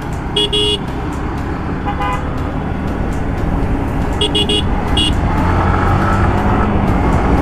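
Motorcycle running on a busy road, its engine and road rumble growing louder near the end. A vehicle horn toots once about half a second in, then quickly three times near four seconds and once more a second later.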